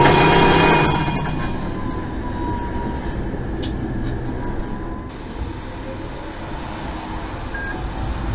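A tram's warning bell ringing, stopping about a second in, then the tram running along the rails with a steady rumble and a faint thin whine.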